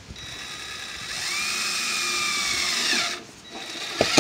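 Cordless drill driving a screw through the metal roofing and vent flange: the motor whine rises, holds steady for about two seconds, then winds down about three seconds in. Near the end there is a click and the drill starts again, much louder.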